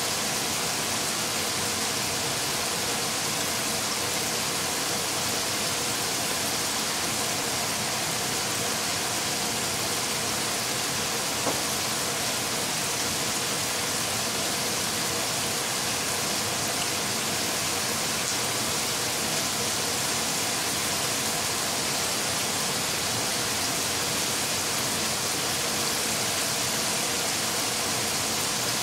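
Steady, even hiss with no change in level, and a single faint click about eleven and a half seconds in.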